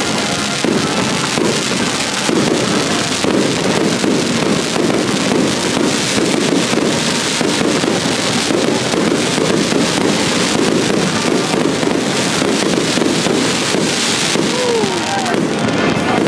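Aerial fireworks bursting and crackling in rapid, unbroken succession during a fireworks show.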